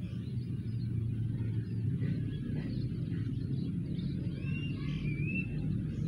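A steady low rumble, the loudest sound, under faint short high bird notes. About two-thirds of the way in, a cuckoo gives a clearer pair of slurred whistles that rise and fall.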